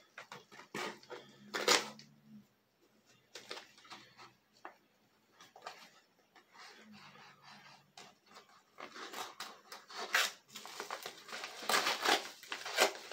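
Paper mailing envelope being cut and torn open by hand: scattered snips, crinkles and small clicks, turning to busier rustling of paper in the last few seconds.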